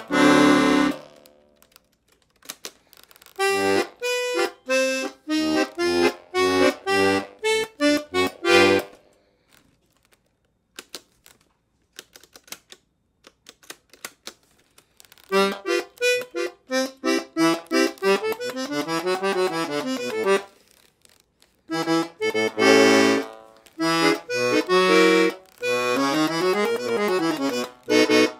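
Bass side of a La Melodiosa Model 70 piano accordion (120 bass buttons, five sets of bass reeds) played alone: short bass notes and chords in groups. About nine seconds in the playing stops for a few seconds, then resumes with quicker runs of notes.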